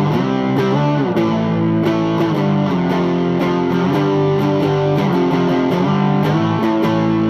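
Electric guitar played through an amp: sustained, ringing chords struck again and again with the pick, the notes shifting as the riff moves.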